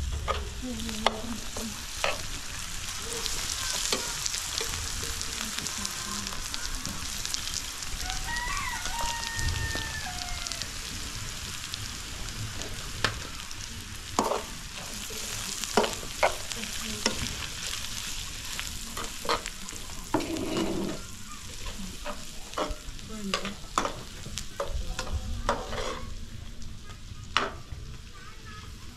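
Food sizzling in a frying pan over a wood fire, with a metal spoon scraping and clicking against the pan as it is stirred at irregular intervals.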